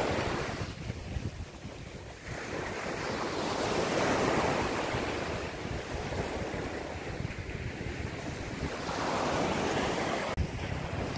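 Small surf waves breaking and washing up a sandy beach, the rush of water swelling and easing in surges, with wind on the microphone.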